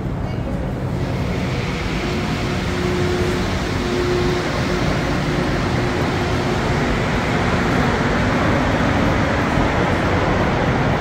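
Rubber-tyred MR-73 metro train pulling out of the station and running away down the tunnel, a steady rumble with a faint steady tone in the first half.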